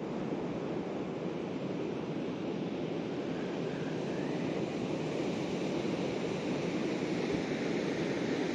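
Surf breaking on a beach: a steady wash of sea noise that grows slightly louder toward the end, with some wind.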